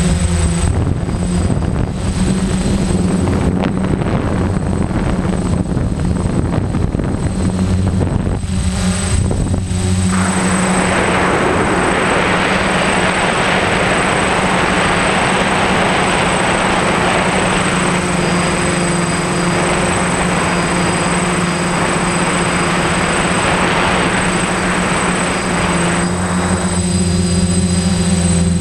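Electric motors and propellers of a small multirotor drone, heard from its onboard camera, with a steady whine-hum. A rushing hiss of air joins for much of the middle and fades out a couple of seconds before the end.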